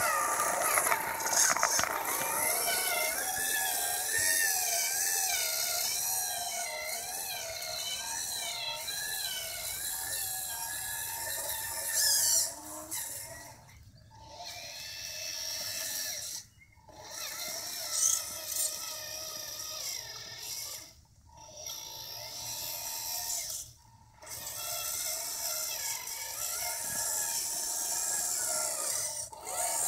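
Radio-controlled model tractor's electric drive motor and gearbox whining as it pulls a plough through sand, the pitch wavering up and down with the load. The drive stops briefly about four times in the second half.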